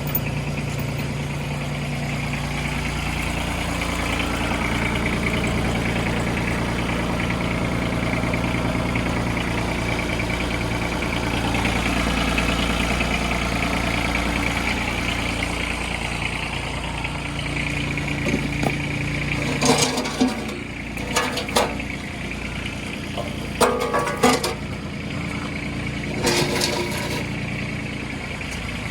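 An engine running steadily, its note changing about two-thirds of the way through, with a series of sharp metal clanks in the latter part as heavy steel I-beam sections are handled.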